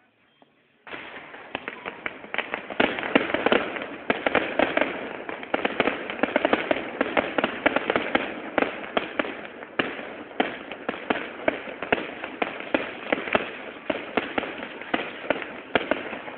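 New Year fireworks going off in a dense, continuous barrage of rapid bangs and crackles, starting abruptly about a second in.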